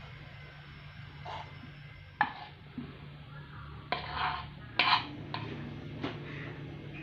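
Kitchen handling sounds: a few short knocks and scrapes of a knife and wooden cutting board against a glass plate, a sharp one about two seconds in and a clattery cluster around four to five seconds in, over a steady low hum.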